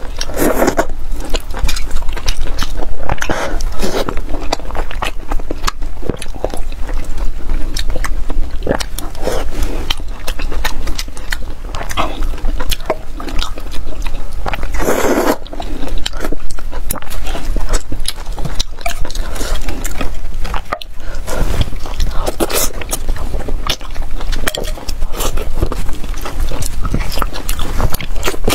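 Close-miked mouth sounds of eating braised pork and wide glassy noodles: wet chewing, biting and lip smacks, with a louder slurp about half a second in and another around fifteen seconds.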